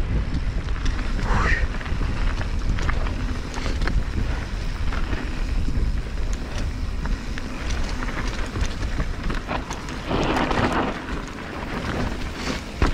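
Mountain bike riding down a rough dirt trail: wind buffeting the microphone over the rumble of tyres, with frequent clicks and knocks from the bike rattling over the ground. A louder burst of noise lasts about a second, about ten seconds in.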